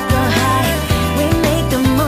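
Background pop music with a steady bass and a melody line over it.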